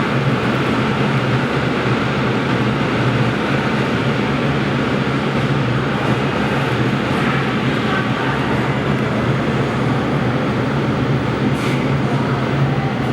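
Steady, loud machinery noise with a constant low hum.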